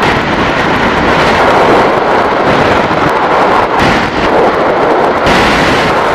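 A loud, steady rumbling rush of noise, like a blast or storm sound effect, playing under an animated logo. It turns brighter and hissier about five seconds in.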